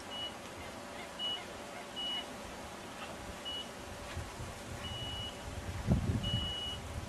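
Electronic carp bite alarm giving about six short high beeps at uneven intervals, the later ones longer, the sign of line being drawn off the rod. A low rumble of wind or handling noise on the microphone about six seconds in.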